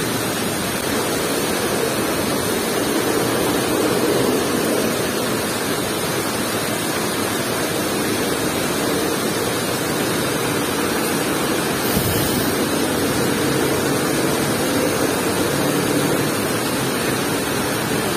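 Steady rush of a shallow river flowing over and around rocks.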